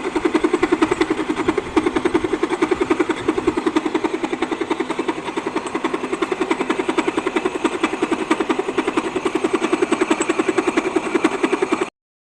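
Milling machine cutting, taking a pass to flatten one side of a workpiece: a loud, rapid, even pulsing. It cuts off suddenly near the end.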